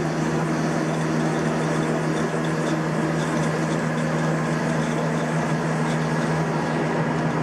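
Haas CNC vertical mill running with its spindle turning at 400 RPM: a steady machine hum with a strong low tone and overtones, and faint irregular ticks over it.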